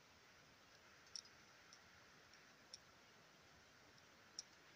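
Near silence with a faint hiss, broken by a few faint, sharp clicks spaced irregularly about a second apart.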